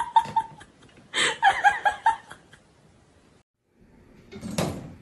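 A person laughing in short giggling bursts, then a brief silence and a single knock near the end.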